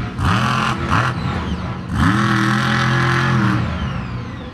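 The Instigator monster truck's engine revving hard: three quick rising blips, then held at high revs for about a second and a half before dropping off.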